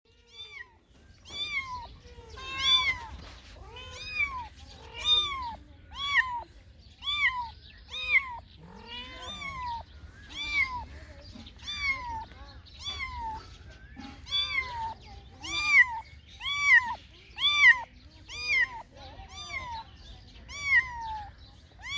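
Cat meowing over and over: a steady string of short, high-pitched meows, each rising and falling in pitch, coming about one a second.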